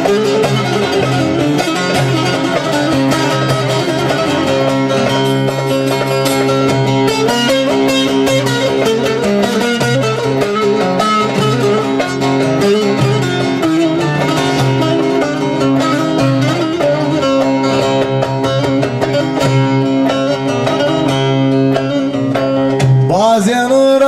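An amplified bağlama (long-necked Turkish saz) plays a fast plucked instrumental passage between verses of a Kırşehir folk song, over steady low accompanying notes. A man's singing voice comes in just before the end.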